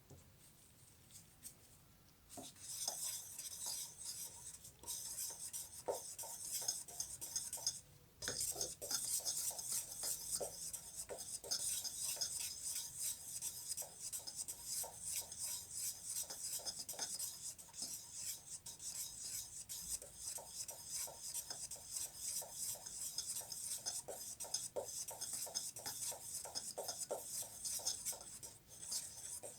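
Quick back-and-forth rasping strokes rubbing over the surface of a wooden tray by hand. They start about two seconds in and run on with a short pause about a third of the way through.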